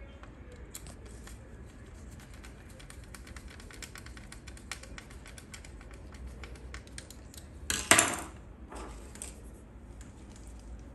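A screwdriver turns a small screw through a router's circuit board into its plastic housing, making a run of fine, rapid ticks and clicks. About eight seconds in there is a brief, louder handling noise, followed by a weaker one.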